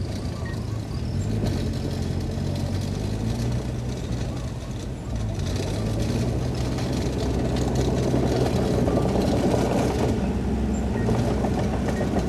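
Heavy diesel earthmoving machinery, a bulldozer or dump truck, running steadily. After a brief dip about five seconds in, the engine grows louder and works harder. A faint repeated high beep comes in near the end.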